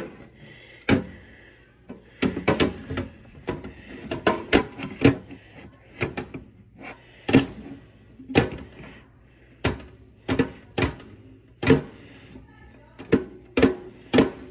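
Feeder crickets being picked out of their container by hand: irregular sharp clicks and knocks with some rustling, about one or two a second.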